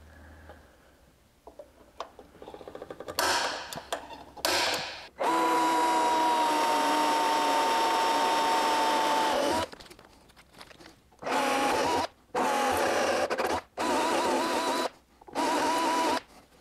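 Cordless drill boring a bolt hole through a junior dragster's dash panel. Two short trigger pulls, then one long steady run of about four seconds with a whine, then four short bursts near the end as the bit finishes the hole.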